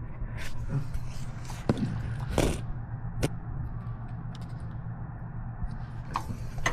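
Plastic clicks and scrapes of electrical connectors being worked loose from engine sensors on a wiring harness, a handful of short sharp sounds spread irregularly over a steady low hum.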